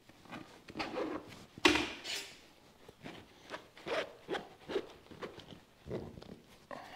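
Fish stick being worked through a channel in a convertible top's fabric: a run of short, irregular scraping and rubbing strokes, the loudest and sharpest just under two seconds in.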